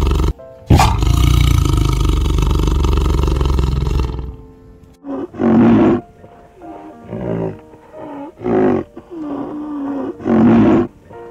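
Tiger roaring loudly and roughly, broken by a brief gap just after the start, then stopping about four seconds in. After it, shorter, softer calls come every second or two over background music.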